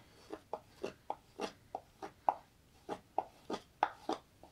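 Small spokeshave taking quick, short cuts along the edge of a green black walnut bowl, about three scraping strokes a second.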